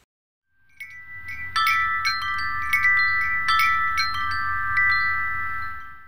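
Short chiming intro jingle: wind-chime-like tinkling notes struck several times over held ringing tones, coming in about half a second in and fading out near the end.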